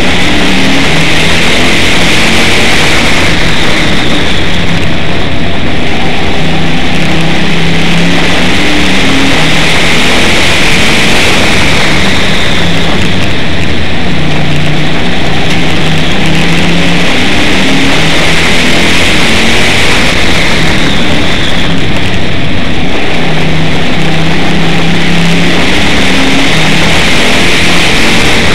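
Race car engine heard from a hood-mounted onboard camera, running hard and loud, its note rising and falling again and again as the car accelerates down the straights and eases off through the turns of a short oval.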